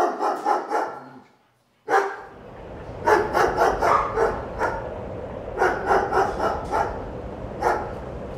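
A dog barking in quick runs of short barks, broken by a moment of dead silence about a second in. The later barks ring out over a steady background hiss.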